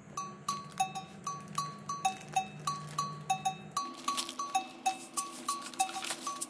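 Background music: a light, bouncy melody of short ringing notes, about three a second, over a low held bass note that shifts higher about four seconds in.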